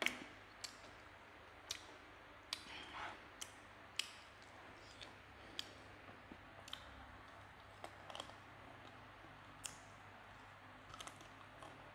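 Faint eating sounds: a sharp clack as a stemmed glass is set down on the table, then scattered clicks of a fork tapping and scraping a glass bowl of fried rice, with a few soft wet chewing sounds.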